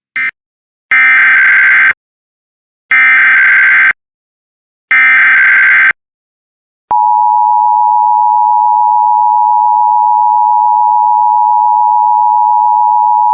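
Start of an Emergency Alert System test broadcast. After a brief blip, three identical one-second bursts of screechy digital SAME header data sound a second apart. About seven seconds in, the steady two-tone EAS attention signal begins and holds.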